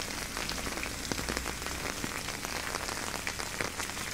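Steady rain falling, an even hiss with many single drops ticking close by.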